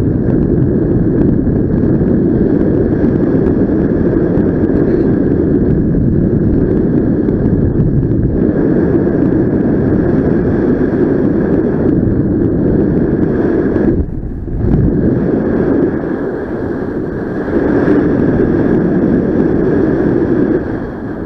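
Wind rushing over the microphone of a flying paraglider: a loud, steady, low rush that dips briefly about two-thirds of the way through.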